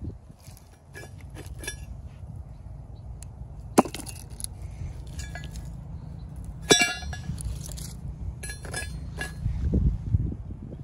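A loose, rusty steel railroad tie plate being picked up and handled on track ballast, giving two sharp metallic clinks with a brief ring about three seconds apart, among smaller clicks and scrapes of stone.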